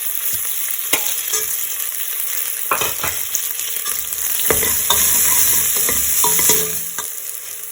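Onion, garlic and green chillies frying in hot oil in a pan, sizzling steadily, with a utensil stirring and clicking against the pan. The stirring is busiest from about four and a half to seven seconds in, then eases off.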